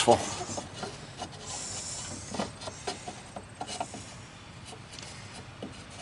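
Plastic turn-signal bulb socket rubbing, scraping and clicking faintly against the headlamp housing as it is pushed and twisted by hand, failing to seat.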